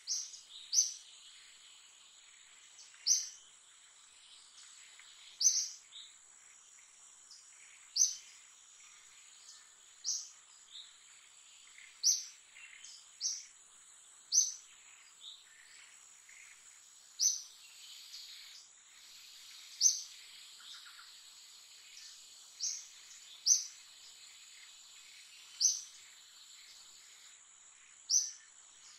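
Forest ambience: a bird repeating a short, sharp, high chirp every two to three seconds over a steady, high-pitched insect drone.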